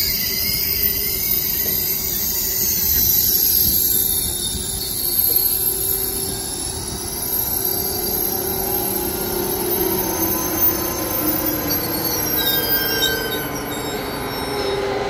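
A KTX-I high-speed train rolling slowly into a station platform as it slows, its wheels and brakes giving a high-pitched squeal that is strongest at first and fades. A lower hum and a few scattered tones come up toward the end as the rear power car draws level.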